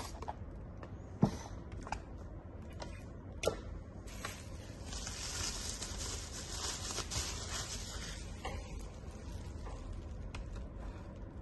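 Faint handling noises from unpacking a boxed plastic clock: two sharp knocks in the first few seconds, a few light ticks, then a stretch of rustling in the middle, over a low steady hum.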